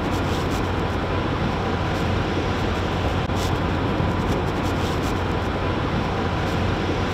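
Steady road and engine noise inside a moving car's cabin, with a few faint ticks here and there.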